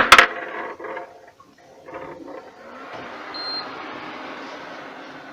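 A few sharp clicks right at the start, then an LG refrigerator's fans and compressor running in test mode with a steady rushing hum.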